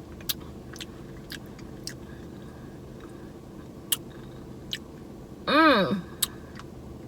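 A woman eating a soft-serve Blizzard: scattered wet mouth clicks and smacks as she chews. About five and a half seconds in comes a short, loud "mmm" of enjoyment that rises and falls in pitch.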